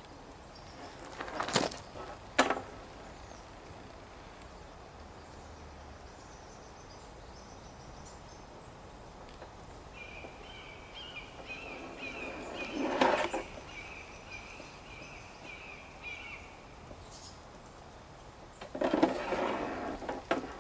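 A few sharp knocks and clatters of handling, and a bird trilling a rapid run of high repeated notes for about six seconds in the middle, over steady outdoor background noise.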